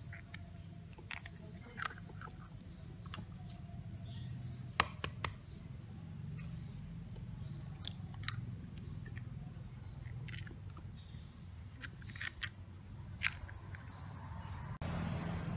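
Cut long beans clicking and rustling as fingers handle them in a stainless steel bowl, with a few sharp taps as eggs are cracked and broken open over the beans. A low steady hum runs underneath.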